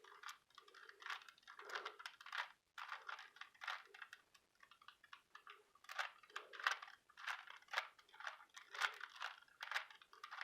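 Rubik's cube being turned quickly through a move sequence: a run of irregular plastic clicks and scrapes as the layers rotate, several turns a second. These are the repeated turns of the algorithm that forms the cross on the last layer.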